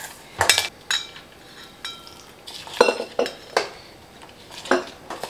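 Metal spoon stirring inside a stainless steel container, striking its sides in several sharp clinks that each ring briefly.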